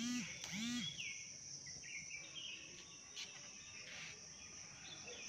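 Steady high-pitched insect drone, cricket-like, with two short pitched calls in the first second and a few faint falling bird chirps soon after.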